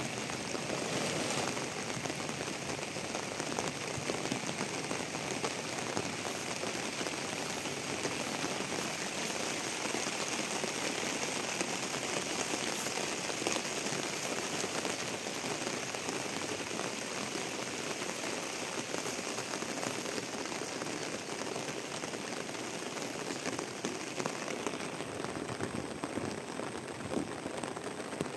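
Steady rain falling on surfaces: a dense, even hiss laced with many fine drop ticks.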